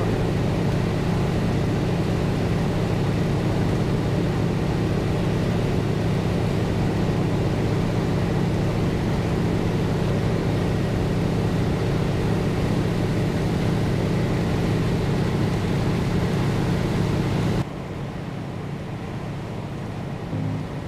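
North American T-6 Texan's Pratt & Whitney R-1340 Wasp radial engine and propeller droning steadily in cruise, heard from inside the cockpit. About three-quarters of the way through it drops suddenly to a much quieter hum.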